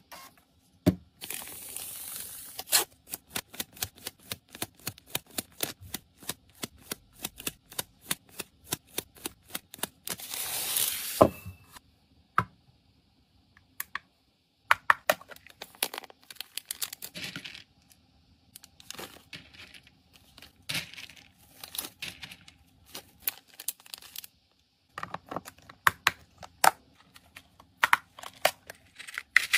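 Close-up handling sounds: a quick run of small sharp clicks and taps, about three or four a second, for the first ten seconds or so, with bursts of paper tearing and rustling. After that come sparser clicks and plastic rustling as a kitchen scale and a clip-lidded plastic box of kibble are handled.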